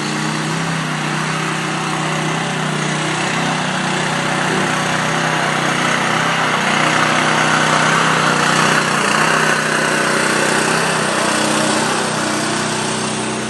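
A small engine running steadily under load, with a noisy hiss that swells a little in the middle.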